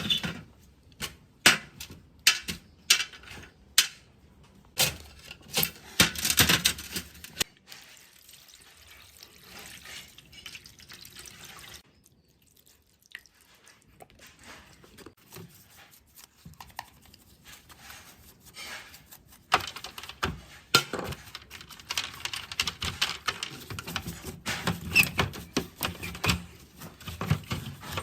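Clicks and knocks of hands and tools working on speaker parts, with a stretch of softer noise in the middle and denser clicking and rustling near the end.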